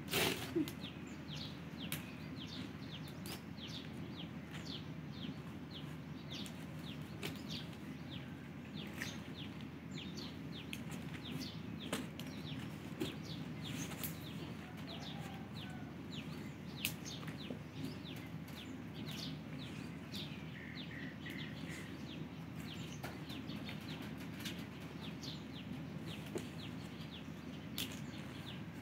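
Birds chirping, many short quick calls one after another, over a steady low background hum.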